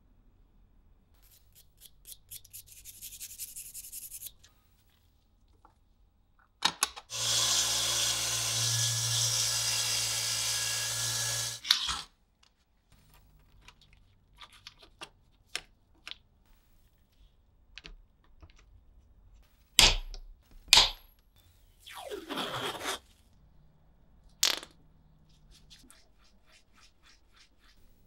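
Bench work on a pocket knife. Light clicking and scraping comes first, then a small power tool runs steadily for about five seconds and stops abruptly. Scattered clicks follow, then two sharp knocks a second apart and a short sound sliding down in pitch.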